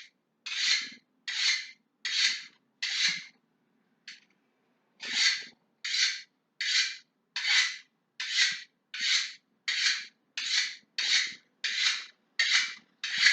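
Kitchen knife blade drawn repeatedly along a hand-held knife sharpener in one-direction strokes, a short rasping scrape about every two-thirds of a second, with a brief pause about four seconds in before the strokes resume, about seventeen in all.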